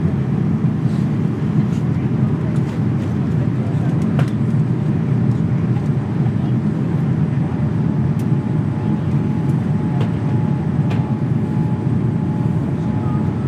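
Cabin noise of a jet airliner on its landing descent, heard inside the cabin: a steady low roar of engines and airflow, with a few faint clicks.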